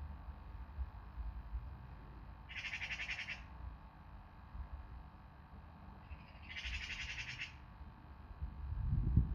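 A bird gives a harsh, rapidly pulsed rattling call twice, each lasting about a second and about four seconds apart, over a low background rumble that swells just before the end.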